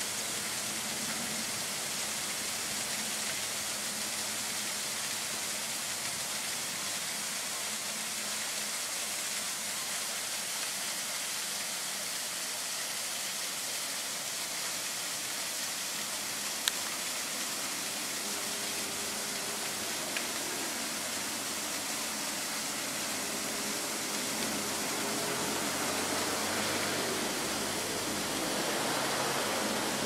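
Steady rushing outdoor noise, even and unbroken, with a single sharp click about seventeen seconds in.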